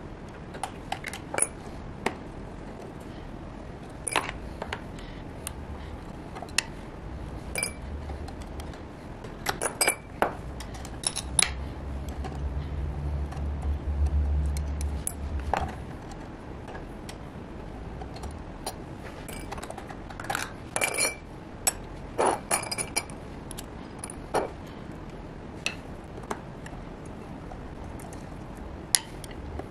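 Scattered metallic clicks and clinks of a screwdriver and small steel parts (presser foot, throat plate, feed dogs and their screws) of a Singer 20U33 industrial sewing machine being unscrewed, lifted off and set back in place. A low hum runs for several seconds in the middle.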